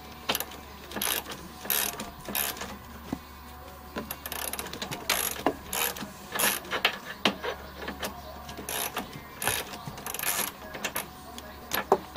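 Ratchet wrench clicking in short, repeated bursts while a Torx bolt on a Jeep TJ seat mount is backed out.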